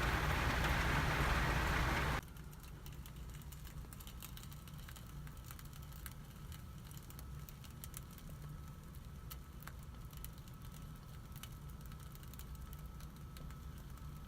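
Rain on a car, heard from inside it, as an even hiss that cuts off abruptly about two seconds in. After that there is a much quieter patter with scattered light ticks.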